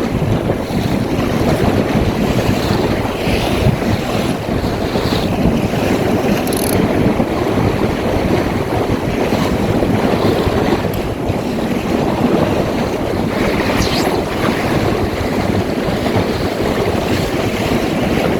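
Strong gusty wind buffeting the microphone over water rushing and splashing along the hull of a small open sailboat under way, with a few brief sharper splashes.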